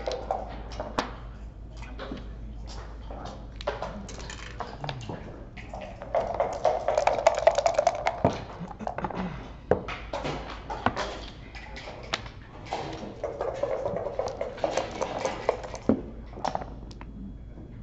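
Backgammon checkers clacking and sliding on a wooden board, with many sharp taps. Twice, about six and again about thirteen seconds in, dice rattle for two to three seconds in a dice cup and are thrown onto the board.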